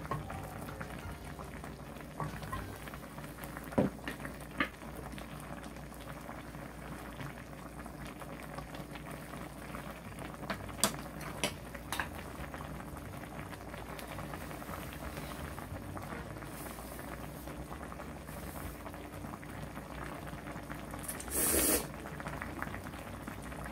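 Spicy ramen with soft tofu bubbling steadily in a wide pan on a portable gas burner, with a few sharp clicks of chopsticks and spoons on the dishes. Near the end, a loud slurp of noodles.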